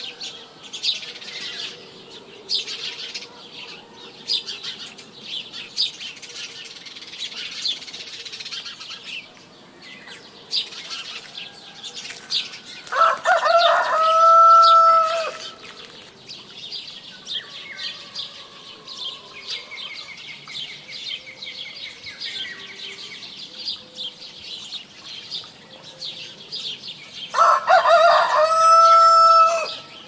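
Small songbirds chirping continuously, with a rooster crowing twice, about halfway through and again near the end. Each crow lasts about two seconds and is the loudest sound.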